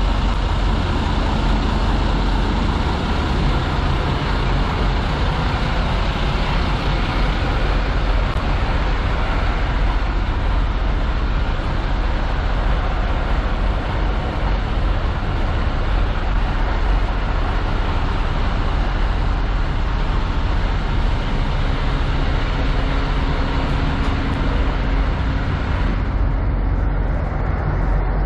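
Diesel semi-truck engine idling: a steady low rumble under a constant hiss, which turns duller near the end.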